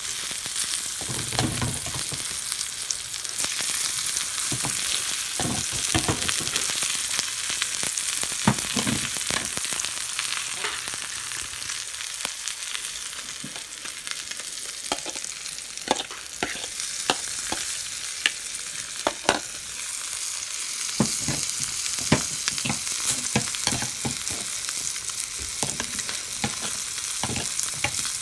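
Oil sizzling steadily in a cast-iron pan around frying koi fish, with scattered pops and clicks as sliced onions and green chillies are added on top.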